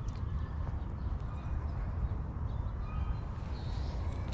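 Steady low rumble of wind on the microphone, with faint bird chirps over it.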